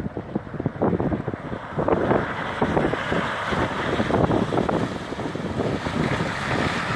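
An off-road SUV, a Toyota Land Cruiser Prado, driving through a shallow stream ford, its wheels churning and splashing water over a stony bed, with wind on the microphone. The splashing grows louder about two seconds in as the vehicle comes closer.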